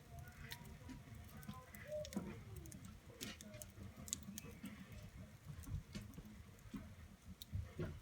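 Wood fire crackling in a fireplace: irregular sharp pops and snaps over a low rumble of the burning logs.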